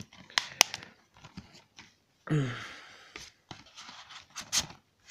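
Handling noise from a plastic DVD case and its cardboard sleeve: sharp plastic clicks in the first second, a longer scraping rustle about two seconds in, and a few more clicks near the end.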